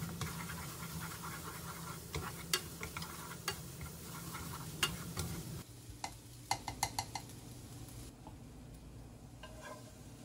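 Noodles, egg and onion sizzling as they are stir-fried in a nonstick frying pan, with occasional sharp clicks of wooden chopsticks against the pan. About halfway through, the sizzle drops away and a quick run of taps follows, then only a few faint clicks.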